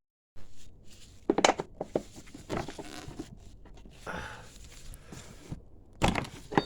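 Scattered clicks, knocks and rustling of hands and tools handling metal bike parts, with the sharpest knocks about a second and a half in and again near the end.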